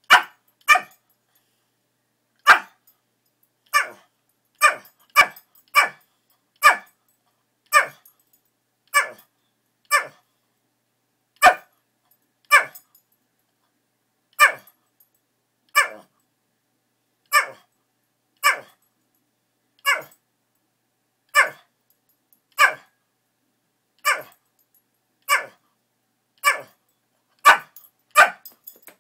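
Shih Tzu giving single sharp barks, one at a time about every second or so, some two dozen in a row: demand barking, pestering its owner to bring out its favourite toy.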